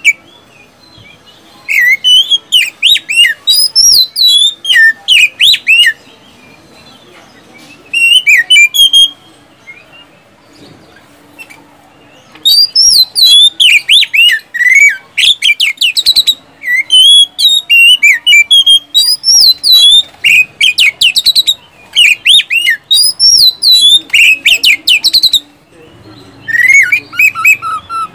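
Oriental magpie-robin (kacer) singing loud runs of rapid, varied whistles and sharp chirps. The runs are broken by pauses of a few seconds, and the longest run lasts about thirteen seconds.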